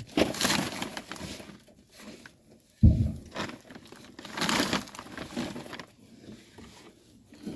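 Old wood scraps and debris being handled and cleared: irregular rustling and scraping, with one sharp knock about three seconds in.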